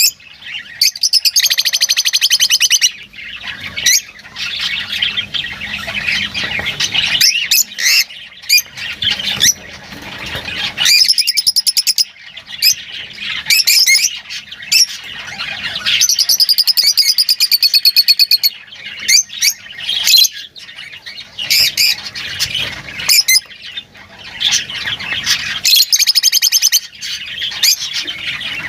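Lovebirds chattering with shrill chirps and squawks, broken by several long buzzy trills lasting a second or two.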